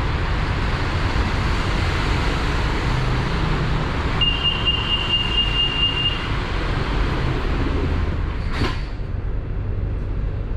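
BTS Skytrain electric train running, heard inside the carriage as a steady rumble and rush. A high steady tone sounds for about two seconds midway, and a sharp click comes near the end, after which the noise turns duller.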